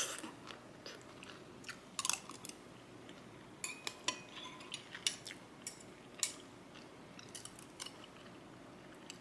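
Someone eating: utensils clicking against a dish, with chewing between the clicks. The sharp clicks come irregularly, the loudest right at the start.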